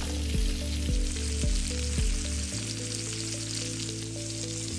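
Salmon steaks sizzling as they pan-fry in butter. Background music plays under the sizzle: a steady beat that changes to held low notes about halfway through.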